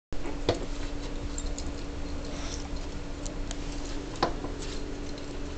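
Two small dogs, one a six-week-old puppy, play-wrestling in a fabric dog bed: scuffling and many small clicks, with two short sharp yelps, about half a second in and about four seconds in. A steady hum runs underneath.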